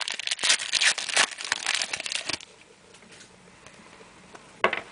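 Crinkling and tearing of a trading card pack wrapper being ripped open, for about two and a half seconds, then stopping, with a few faint clicks after.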